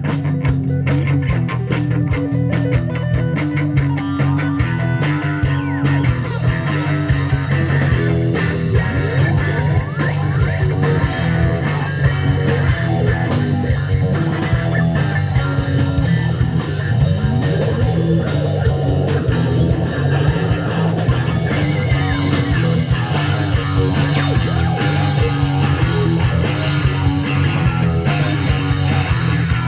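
Live rock band playing an instrumental break: electric guitar lead with gliding, bending notes over a steady bass line and drums with dense cymbal strokes.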